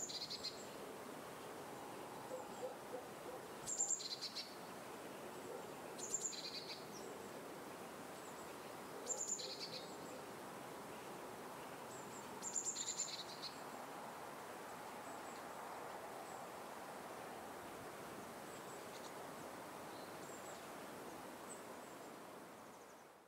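A bird repeating a short, high two-note call, a sharp higher note dropping to a lower one, about every three seconds, five times clearly and then more faintly, over a steady hiss of outdoor ambience. It all fades out at the end.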